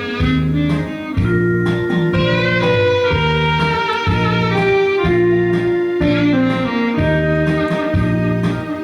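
Instrumental music: a held melody line with vibrato over a backing track with a steady, pulsing bass beat.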